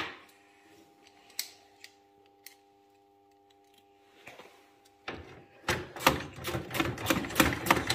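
Ratchet wrench clicking rapidly, about six clicks a second, as a screw is turned, starting near the end after a few scattered knocks of tool handling.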